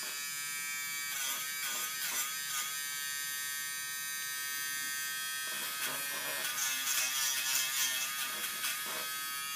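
Small electric tool fitted with a fine wire brush, buzzing steadily while it polishes the dirt off push-on connector pins. Its pitch wavers twice as it is worked against the pins.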